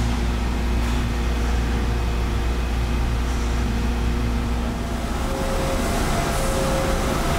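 Steady low rumbling background noise; about five seconds in it changes to the hum of a steel-processing factory hall, with a steady machine tone sounding on and off.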